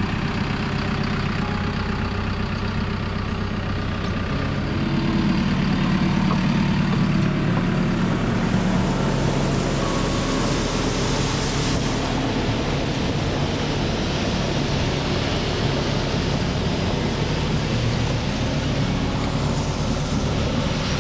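Heavy-equipment engine running steadily while a bucket machine works base material, growing louder about five seconds in as it takes on more load.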